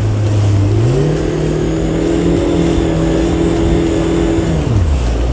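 Jet ski engine revving up about a second in as the throttle opens, holding a steady pitch, then easing back down near the end.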